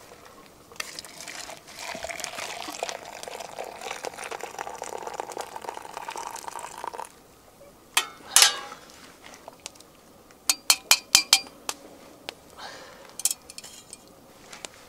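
Just-boiled water poured from a stainless steel bush pot into a stainless steel cup, the pitch of the pour rising as the cup fills, for about six seconds. Then a spoon clinks against the metal cup, with a quick run of about six clinks a few seconds later.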